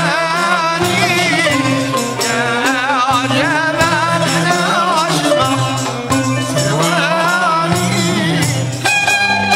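Live Moroccan chaabi music: men singing with wavering melodic lines over hand percussion, with upright-held violins playing along.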